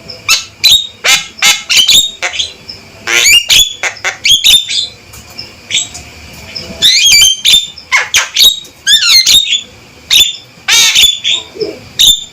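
Male Javan myna calling loudly: harsh squawks and quick whistled notes in rapid runs, coming in four or so bursts with short pauses between them.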